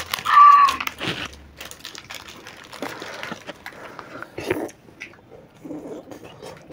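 Plastic ice-cream wrappers crinkling as they are torn open, with a short voice sound near the start. Quieter mouth sounds of licking and eating ice cream follow.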